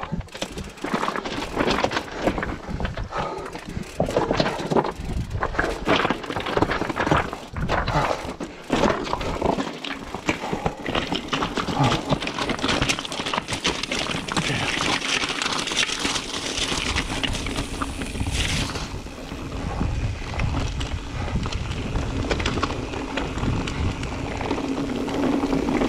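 Mountain bike being ridden over rough, rocky trail: irregular clattering and knocking from tyres and bike over stones, giving way after about ten seconds to a steadier rushing noise, with wind on the camera microphone.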